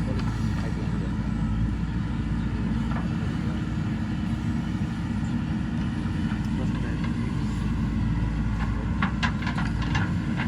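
JCB 3DX Super backhoe loader's diesel engine running steadily while digging, with a few sharp metallic clanks near the end.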